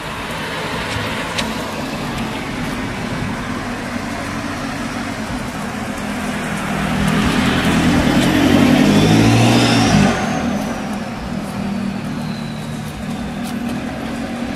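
A motor vehicle passing: its engine grows louder for a few seconds, peaks, and drops away about ten seconds in, over a steady background hiss.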